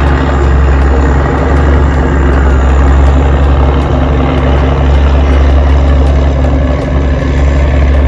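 Ferry boat's engine running steadily, heard on board as a loud, unbroken low drone.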